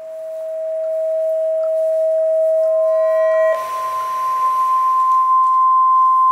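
Electronic sine tones played through a loudspeaker. A single steady pure tone swells in loudness. A little past halfway it gives way to a higher pure tone, with a hiss of noise underneath.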